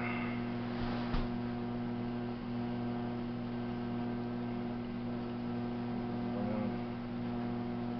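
Steady electric hum of a potter's wheel motor running: a low tone with evenly spaced overtones, with a faint tap about a second in.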